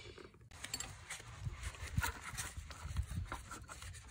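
Metal open-end spanner clinking and knocking irregularly as it is worked onto a gear-linkage ball joint, a few dull thumps among lighter clicks.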